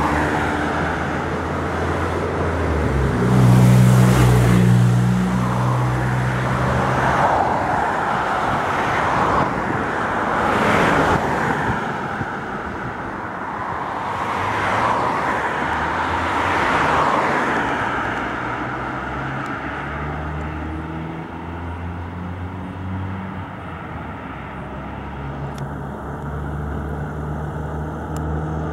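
Street traffic: vehicles pass one after another, each swelling and fading, over a steady low engine hum. The last third is quieter.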